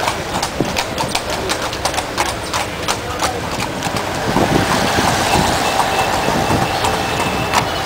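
Horse's hooves clip-clopping on the road as it pulls a carriage, an even run of sharp hoofbeats. About halfway through, the hoofbeats grow fainter under a steadier rushing noise.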